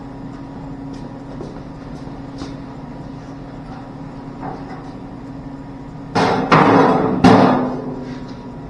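Loose steel car parts clanging and clattering together: two loud crashes about a second apart, near the end, each ringing on briefly.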